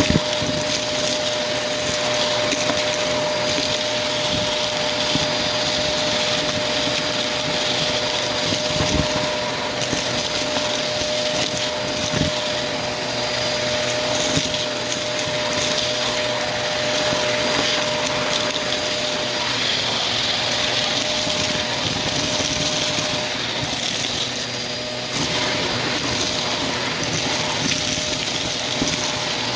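Vacuum cleaner running steadily with a dusting brush attachment, its suction hissing as it is worked over a dusty surface, with a couple of brief knocks from the brush.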